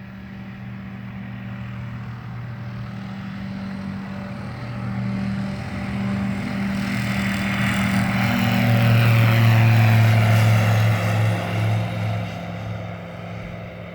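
Light single-engine propeller airplane flying past: the engine and propeller drone grows louder to a peak about two-thirds of the way through, its pitch falls as it passes, and it fades away.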